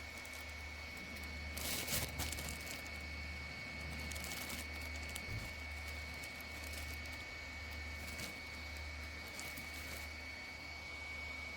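Small USB fan running steadily: a constant high-pitched whine over a low hum, with a few faint clicks.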